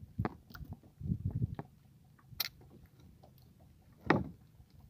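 Close handling noise of hands working fishing line over a wooden plank: soft rustling and knocking about a second in, and three sharp clicks, the last and loudest near the end.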